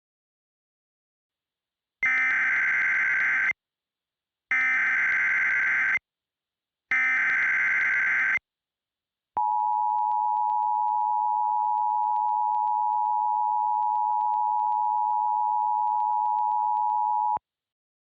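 Emergency Alert System alert tones: three harsh SAME data bursts of about a second and a half each, then the steady two-tone attention signal held for about eight seconds before it cuts off suddenly. They mark the start of an emergency broadcast warning.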